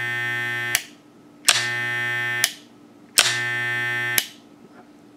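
Wahl balding hair clipper's electromagnetic vibrator motor buzzing with its cover off, switched on and off: three buzzes about a second long, each cut on or off with a sharp click of the switch.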